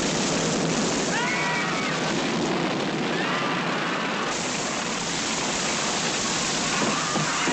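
Film-soundtrack storm noise: a loud, steady rush of wind-driven rain and crashing water. A few brief high wails rise and fall over it, about a second in, around three seconds in and again near the end.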